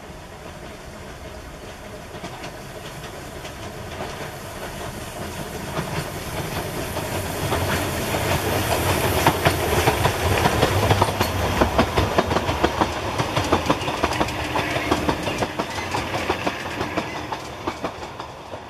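Narrow-gauge steam train approaching and passing close by: the rumble and clickety-clack of its wheels over the rail joints grows louder, is loudest about halfway through as the locomotive passes, then fades as the coaches roll by.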